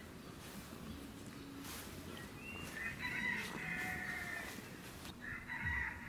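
A rooster crowing twice in the background, the first crow about three seconds in and the second near the end, over faint rustling.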